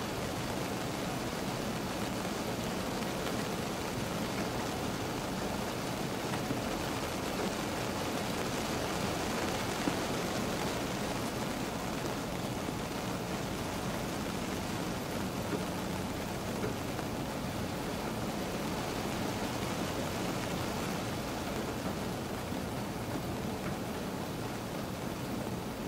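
Steady rain falling on a car, heard from inside the cabin: an even hiss with a few louder single drops.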